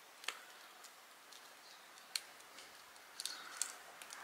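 Faint clicks from handling a plastic action figure and its nunchaku with metal chain links while its articulated fingers are closed around the weapon. One click comes early, one near the middle and a few close together near the end.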